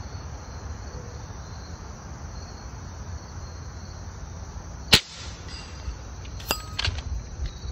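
A single sharp shot from a .25 calibre AEA Challenger bullpup PCP air rifle about five seconds in, followed a second or so later by a few smaller clicks, over steady insect chirring.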